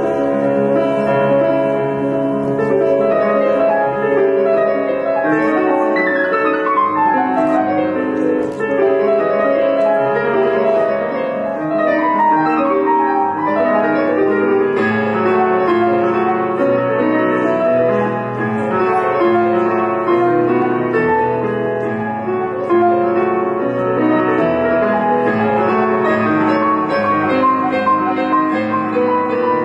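Classical-style piece played on a Casio Privia digital piano, with two falling runs about six and twelve seconds in.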